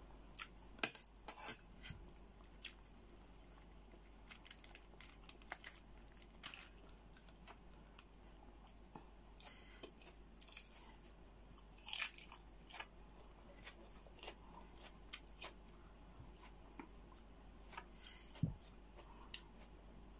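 Close-up mouth sounds of a person chewing crab roe and meat, with scattered small crunches and sharp clicks. The loudest click comes about twelve seconds in and another near eighteen seconds.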